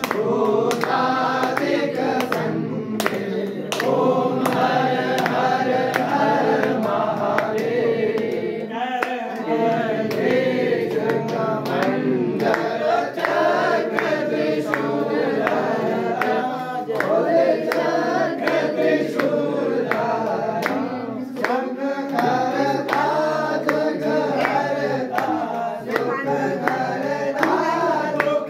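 Group of devotees singing a Shiva aarti together, with sharp clap-like beats keeping time about twice a second.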